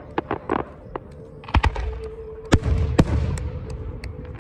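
Aerial fireworks going off: a string of sharp bangs and pops, the heaviest about a second and a half in, near two and a half seconds and at three seconds, each followed by a low rumbling echo.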